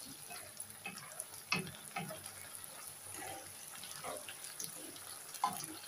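Spaghetti and prawns being stir-fried and tossed in a frying pan: a faint sizzle under scattered scrapes and clicks of a spatula and a metal utensil against the pan, the sharpest about a second and a half in and again near the end.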